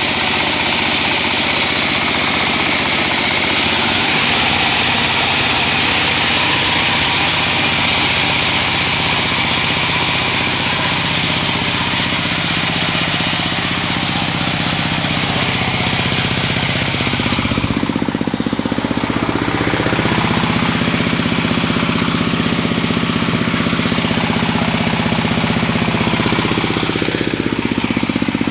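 Corn cracking machine running, a loud steady mechanical rattle and drone as maize kernels are broken into grits. About halfway through, the high rattling hiss falls back and a lower hum comes forward.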